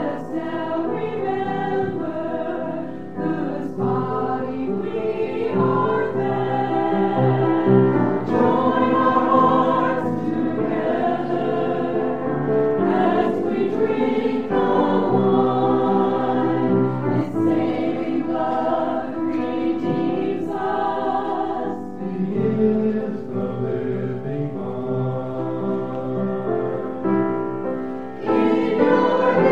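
Choir singing.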